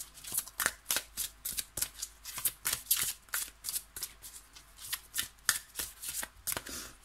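A deck of oracle cards being shuffled by hand: a quick, even run of crisp card-on-card slaps, about three or four a second.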